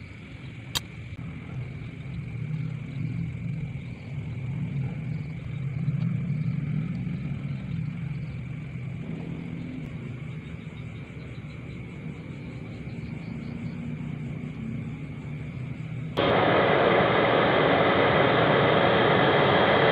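A low steady rumble with a single sharp click near the start. About 16 seconds in, it switches abruptly to the much louder, steady rushing noise of a blacksmith's forge fire burning under an air blast.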